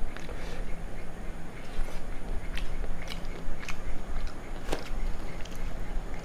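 Close-up chewing of a mouthful of vegetable pulao and chicken gravy: wet mouth sounds with scattered sharp lip smacks and clicks, over a steady low hum.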